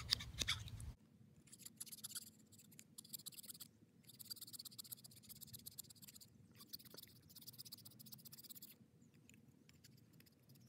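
Small multi-tool file rasping on wood in quick strokes, smoothing the insides of a carved wooden fork's tines. The filing is faint and comes in three spells of a couple of seconds each with short pauses, lighter near the end.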